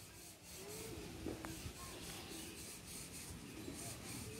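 Faint rubbing and handling noise over a quiet, low outdoor rumble, with a few very faint distant tones.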